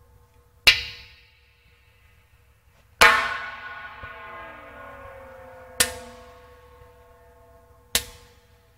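Four sharp bangs sent into an empty large-diameter gas pipeline, each coming back as a long, ringing, laser-like echo. The second is the loudest and longest, with tones that fall in pitch as it dies away.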